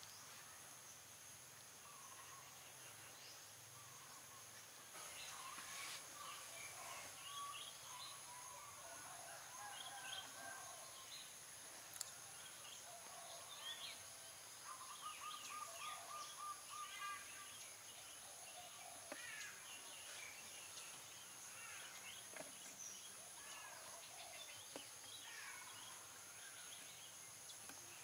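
Faint outdoor ambience: scattered bird chirps and a short trill over a steady, high-pitched insect drone.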